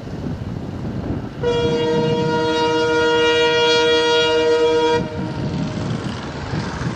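Train locomotive sounding one long horn blast of about three and a half seconds, starting about a second and a half in, over the steady rumble of the train running on the track.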